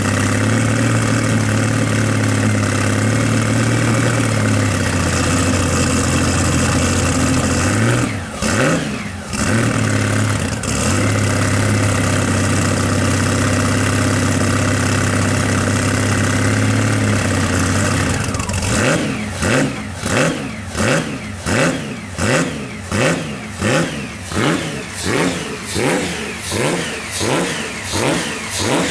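Pre-war single-seater race car's six-cylinder engine running at a steady fast idle, revved briefly about a third of the way in. In the second half it is blipped over and over, rising and falling about three times every two seconds, as it is warmed up.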